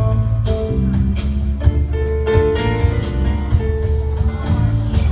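Live band playing an instrumental vamp: a steady drum beat, a walking bass line and held chords.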